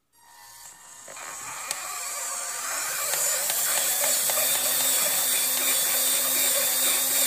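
Electric drive motor of a homemade radio-controlled model tractor, run from the transmitter through an ESC, spinning up from rest. Its whine rises and grows louder over the first few seconds, then holds steady at speed.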